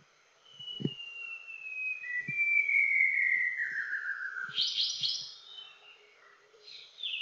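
White-browed shama singing: one long whistled note that glides slowly downward for about three and a half seconds, followed by a quick cluster of higher, rapid notes, and another short cluster near the end.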